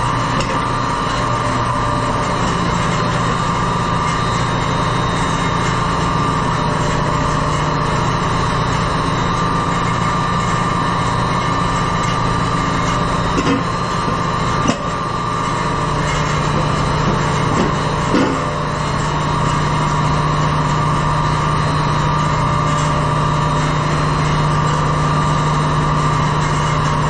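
Steady, loud engine-room machinery drone aboard a ship: a constant low hum with several steady higher whines running through it. A few light knocks come about halfway through.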